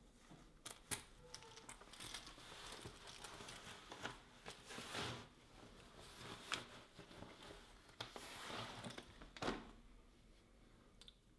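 Soft rustling and crinkling in irregular swells, with a few sharp clicks, the loudest about nine and a half seconds in.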